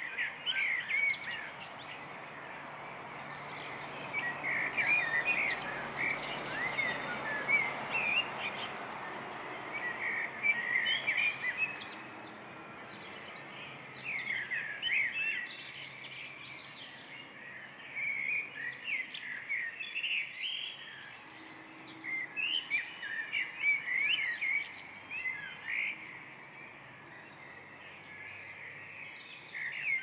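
Songbirds singing in a pre-dawn chorus: short, twittering song phrases from several birds come in bouts every few seconds over steady low background noise.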